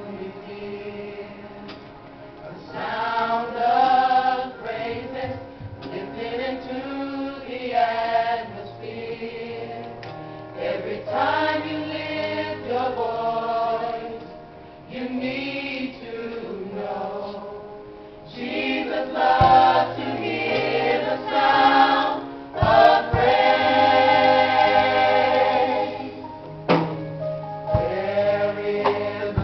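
Gospel choir singing in harmony, phrases swelling into loud sustained chords, with a few low thumps in the second half.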